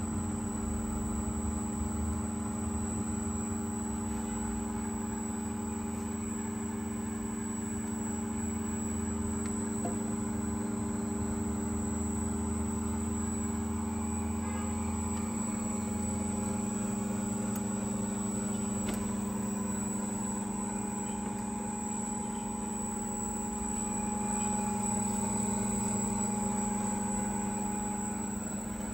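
Mini plastic film extruder line running: its electric drive motors and rollers make a steady hum of several fixed tones with a thin high whine above it. A low rumble underneath eases off about halfway through.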